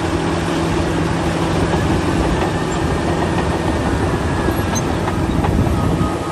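Pressure washer running steadily: an even hiss of spray with a low, constant motor hum underneath.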